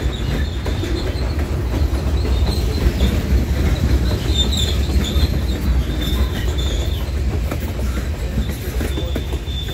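Freight train of covered hopper cars rolling past. Its steel wheels rumble and clack steadily on the rails, with a thin, high wheel squeal coming and going.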